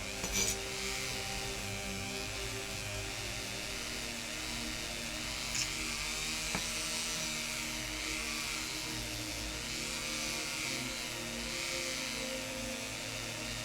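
Power-driven rotary wire brush running steadily against small diecast metal parts, stripping old paint and rust. The whir wavers slightly, with a few faint ticks.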